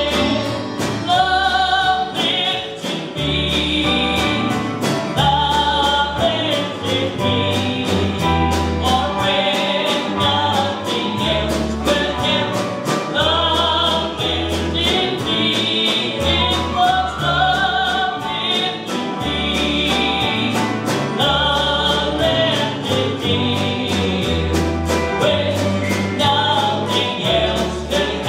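Live country gospel band playing with a steady drum beat: a lead vocal over fiddle, steel guitar, acoustic and electric guitars, keyboard, bass and drums.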